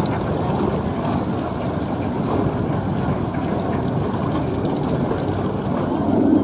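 The Baby Bootlegger speedboat's 7.4-litre, 330 hp engine running steadily at low speed, a low even rumble, with wind on the microphone.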